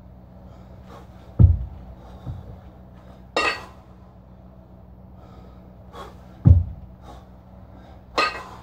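A man lifting a pair of kettlebells gives two short, forceful exhales, about five seconds apart, as he presses them overhead. Between the exhales come two dull low thumps, the loudest sounds.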